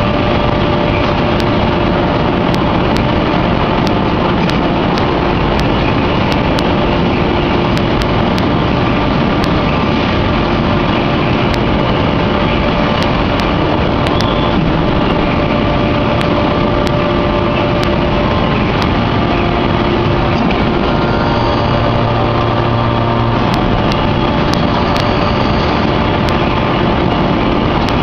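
Anyang hydraulic open-die forging press and its forging machinery running: a steady loud drone with a steady whine in it and sharp ticks now and then. A deeper hum joins for about two seconds about three-quarters of the way through.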